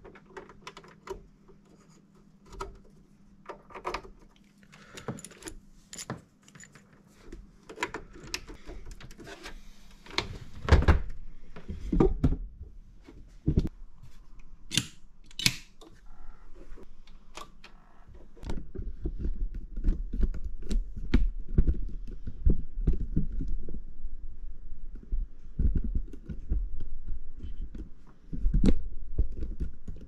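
Computer cables and plugs being handled and pushed into the back of a desktop PC and a wall socket: scattered clicks, rattles and knocks. The knocking and rumbling grow heavier in the second half.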